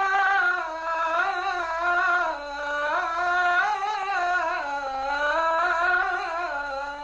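A single unaccompanied voice chanting Islamic religious chant in long, ornamented held notes that slide between pitches and drift gradually lower.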